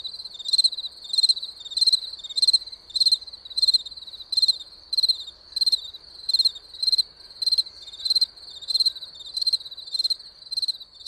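Cricket chirping in a steady, even rhythm, about one and a half to two high chirps a second, over a faint background hiss.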